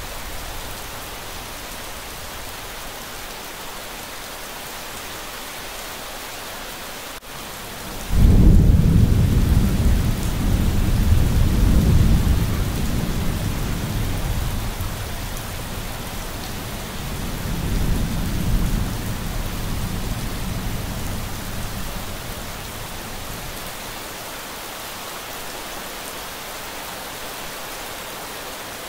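Steady rain falling throughout. About eight seconds in, a sudden clap of thunder breaks in, and the thunder rumbles on, swelling again twice before dying away under the rain roughly a dozen seconds later.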